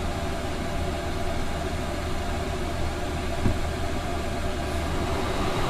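Chinese diesel air heater running, its fan pushing a lot of warm air with a steady hum. A single light click comes about three and a half seconds in.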